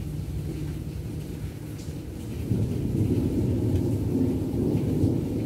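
Rolling thunder: a low rumble that swells louder about two and a half seconds in.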